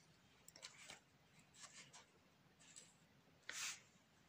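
Near silence broken by faint rustling and handling noises as a fabric doll is set down on an oilcloth-covered table, with one brief, louder rustle about three and a half seconds in.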